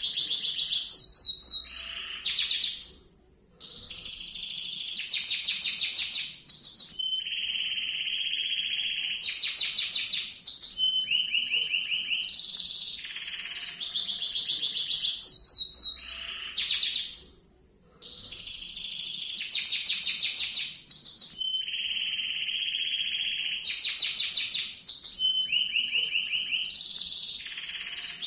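Domestic canary singing a long rolling song of fast trills and rapid repeated notes, with a lower, steadier rolled passage now and then, and a short break twice.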